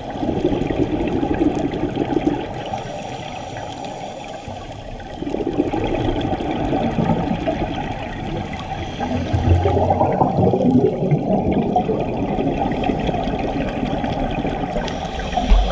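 Scuba regulator exhaust bubbles heard underwater: bursts of bubbling that swell and fade with each breath, a few seconds apart. A short low thump comes near the end.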